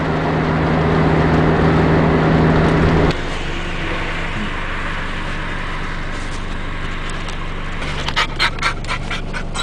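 Car engine and road noise heard inside the cabin while driving, with a steady low hum; it swells over the first second and drops off sharply about three seconds in, leaving a quieter steady drone. Near the end, a dog panting quickly, about five breaths a second.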